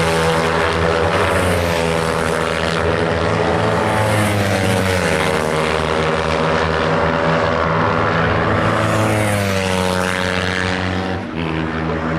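Several Kawasaki Ninja 300 racing motorcycles' parallel-twin engines running hard as the bikes race down the straight. The engine note is loud and steady, and its pitch slides down about four seconds in and again near nine seconds.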